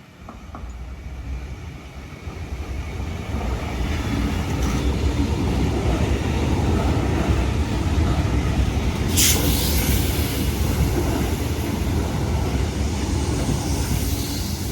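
Sydney Trains Tangara electric passenger train going through the station. The rumble of its wheels and motors builds over the first few seconds, then holds steady and loud. A brief sharp hiss cuts through about nine seconds in.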